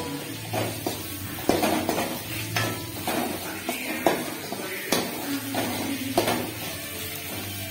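Metal perforated ladle scraping and clinking against an aluminium kadai as boiled taro root pieces are stirred and fried in oil, with irregular knocks about once a second.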